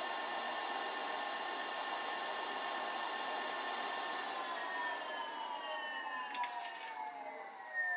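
Electric bike's front hub motor whining at a steady speed under throttle, driven by a repaired Lyen 18-FET controller. About four seconds in the throttle is let off and the whine falls steadily in pitch as the wheel spins down, with a few light ticks near the end.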